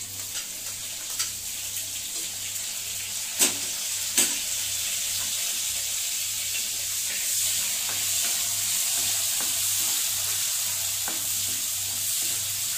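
Chopped onion and green chilli frying in hot oil in a kadai, a steady high sizzle, stirred with a wooden spoon. Two sharp knocks come about three and four seconds in.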